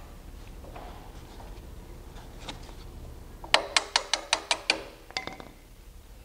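Steel bolt being worked through a rear suspension bar's end and its steel mounting bracket: a quick run of about eight sharp metallic clicks a little over halfway in, then two more, over a low steady hum.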